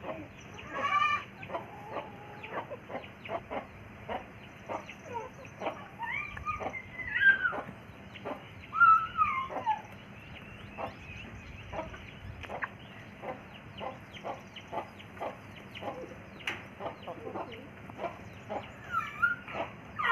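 A flock of desi free-range chickens clucking, with rapid short clucks throughout and a few longer calls that slide in pitch, loudest about seven and nine seconds in.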